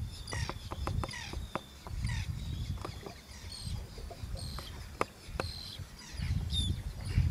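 Small birds chirping in many quick, high calls, with gusts of wind rumbling on the microphone.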